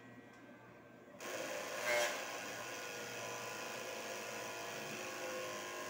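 Corded electric hair clippers switched on about a second in, then running with a steady buzz.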